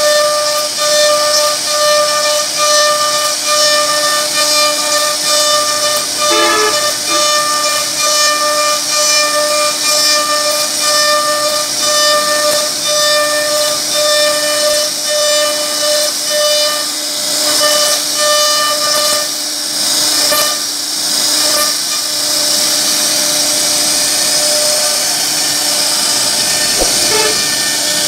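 CNC router spindle whining at one steady pitch while its cutter carves relief patterns into a wooden bed panel, with a hiss of the bit cutting wood over it. The loudness pulses gently as the cutter works. From about two-thirds of the way in, the whine fades somewhat and the hiss comes forward and runs more evenly.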